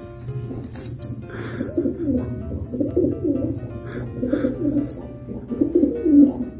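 Domestic pigeon cooing repeatedly, a run of low rolling coos one after another, over faint background music.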